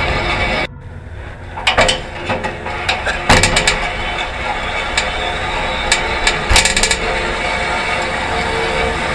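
Rusty mamachari shopping bicycle rattling and clanking as it is ridden over a wet road, with frequent sharp metal knocks from the worn frame and parts. The sound cuts out abruptly under a second in and comes back in the same rattling manner.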